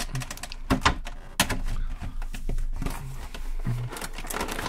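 Clear plastic blister tray from an action figure's packaging being handled and flexed as the figure is pulled out: irregular crackling and clicking of the plastic, with a couple of louder cracks in the first second and a half.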